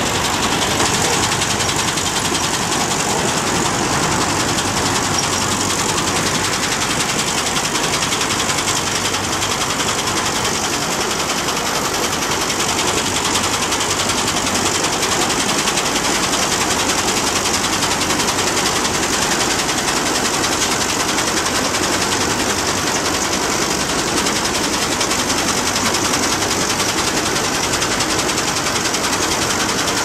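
Combine harvester with a sunflower header running while harvesting sunflowers: its engine and threshing machinery give a loud, steady, rapid mechanical clatter.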